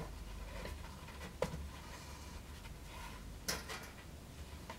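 Hand-stitching a leather scabbard: a sharp click about a second and a half in, then near the end a brief rasp as the stitching thread is pulled tight through the leather.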